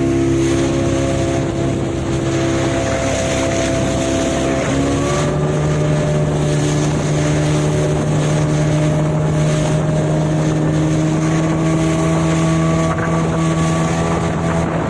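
Motorboat engine running steadily under way, its pitch stepping up slightly about five seconds in, with a rush of wind on the microphone.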